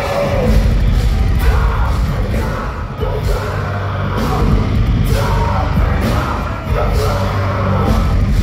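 Loud live heavy metal band: distorted electric guitars and drums, with the lead vocalist singing and yelling over them.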